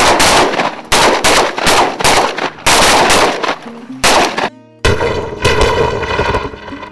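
Duck hunters' shotguns firing a rapid, ragged volley of about ten shots from several guns, the blasts close together over the first three seconds and then spacing out to roughly one every two-thirds of a second.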